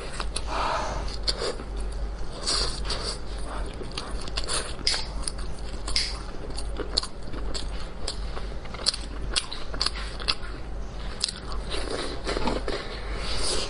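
Close-up biting and chewing of a steamed baozi with a pickled long bean and meat filling: irregular wet mouth clicks and smacks.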